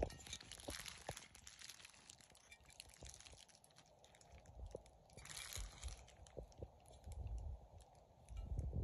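Faint handling of bubble-wrap packaging: light clicks and small taps, with a short burst of plastic crinkling about five seconds in, as a glass water pipe is unwrapped and turned in the hand.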